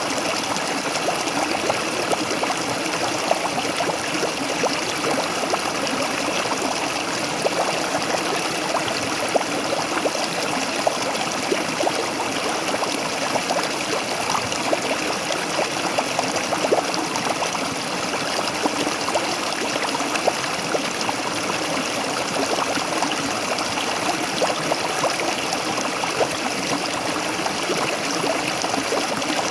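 A waterfall's water running and splashing steadily, with many small irregular splashes and gurgles over a constant rush.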